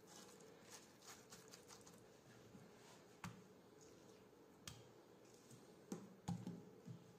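Faint handling sounds of raw rooster pieces and onion chunks being set into a stone-coated pot: soft rustles, then a few sharp little clicks and knocks, the loudest just past the middle and toward the end.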